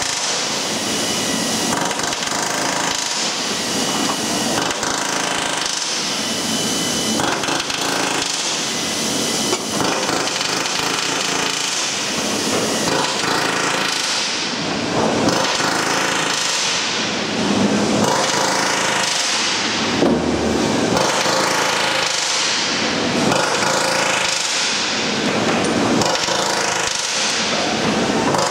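Loud, continuous workshop machine noise with rapid pneumatic hammering. From about halfway through, a tool's sound swells and falls every two to three seconds.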